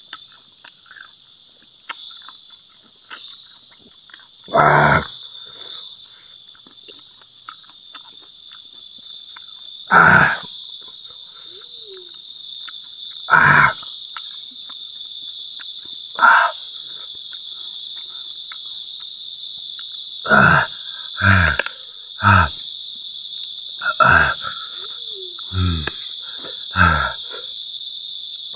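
A man's short, loud groans and gasping exhales, about ten of them, coming closer together in the second half, his reaction to the burn of chili eaten with green mango. A steady high insect drone runs underneath.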